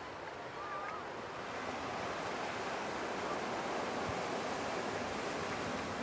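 Atlantic surf washing onto the beach: a steady rushing wash that swells a second or two in and holds.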